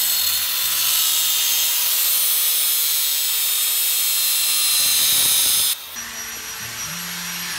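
Angle grinder with a cutoff wheel cutting through a metal bracket, a loud steady hissing grind with a faint whine from the motor. It cuts off abruptly about six seconds in.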